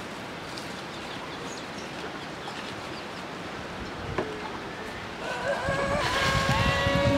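Domestic chicken calling: a long drawn-out call in the last two seconds, over a faint outdoor background. A single knock comes about four seconds in.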